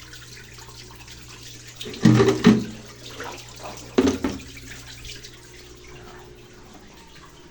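Mabe top-load washing machine pumping out its wash water before the spin: water rushing out over a steady low hum, with two louder bursts about two and four seconds in. The hum stops about six seconds in.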